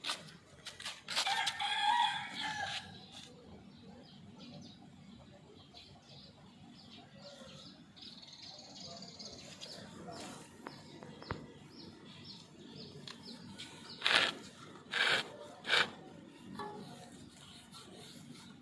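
A rooster crows once, about a second in, for about two seconds. Later comes a quick run of four short rubbing noises.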